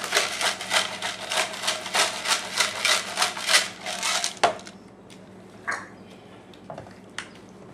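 Large disposable Kirkland grinder being twisted to grind seasoning: a fast, even run of crunchy clicks, about five a second, which stops about four and a half seconds in. A few soft knocks follow.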